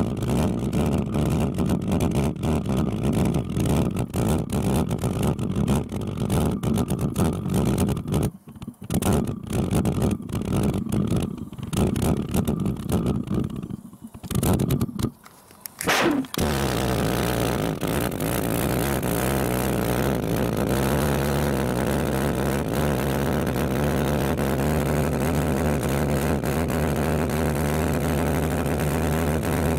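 Homemade valveless pulse jet running. At first it sputters unevenly with rapid pops and brief cut-outs. Then, after a short rising whine about 16 seconds in, it settles into a smooth, steady buzzing drone.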